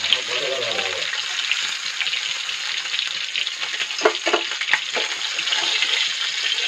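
Fish sizzling steadily as it fries in hot oil in a kadai, with a metal spatula knocking and scraping against the pan several times about four to five seconds in.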